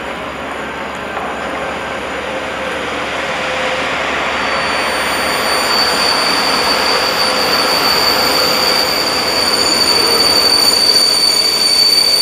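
PKP Intercity EP07 electric locomotive and its passenger coaches pulling into the station, the rolling noise growing steadily louder. About four and a half seconds in, a steady high-pitched squeal sets in and holds as the train brakes.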